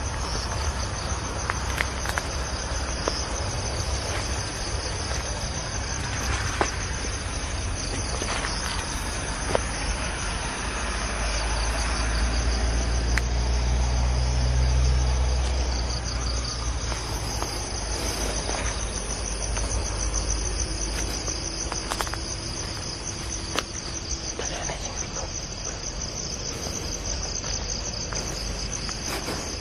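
A steady, dense chorus of night insects such as crickets, with scattered clicks and rustles of footsteps through grass and leaves. A low rumble swells about halfway through.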